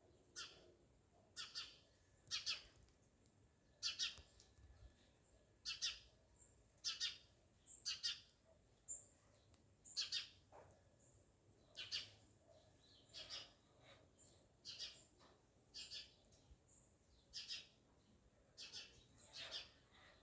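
Short, high bird chirps repeating irregularly, about one a second, over a quiet background.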